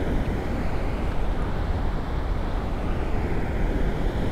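Dam outflow: water rushing from the outlet gates into the channel below, a steady, even rush.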